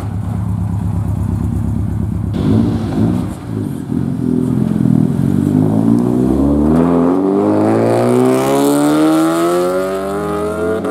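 Subaru Impreza WRX's turbocharged flat-four running at low revs with a deep, steady note. After a cut about two seconds in, a Honda Civic hatchback's engine pulls away, its revs climbing steadily through the last few seconds.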